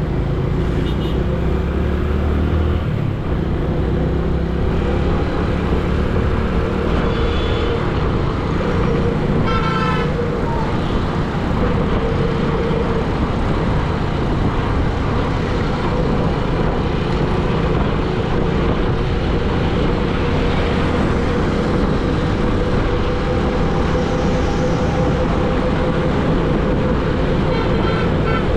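Road traffic: vehicle engines running steadily, with a few short horn toots now and then.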